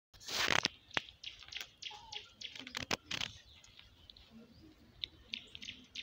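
Dog tearing and crunching at a dead rooster: a run of short ripping and crunching noises as it pulls at feathers and flesh. The loudest come in the first second; after about four seconds they are lighter and sparser.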